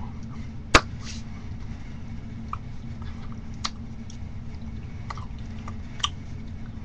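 Hands signing: one sharp slap or clap about a second in, then a few faint taps and clicks, over a steady low hum.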